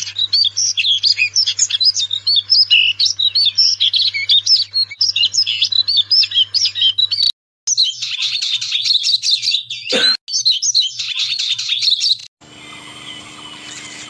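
Small songbirds singing: a rapid, busy run of high chirps and trills, broken off about seven seconds in, then another bird's high twittering song with a single sharp click about ten seconds in. Near the end the song gives way to a quieter background with a steady hum.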